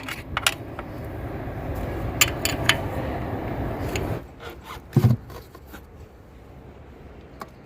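Rasping, scraping hand-tool work on a car engine, such as tightening bolts: it grows louder for about four seconds, with a few sharp clicks, then stops suddenly. A short low sound follows about a second later.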